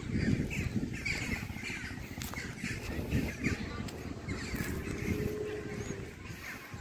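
Birds calling outdoors, many short chirps and calls repeating through the whole stretch, with crow-like caws among them, over a steady low rumble from the moving hand-held microphone.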